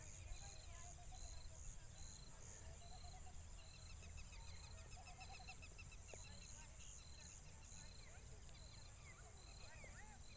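Faint rural ambience: a high insect-like chirp repeating about twice a second over a constant high buzz, with scattered bird calls.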